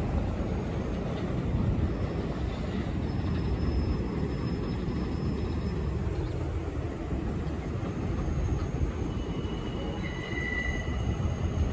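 New York City subway train running on the rails: a steady rumble with faint, thin wheel squeals.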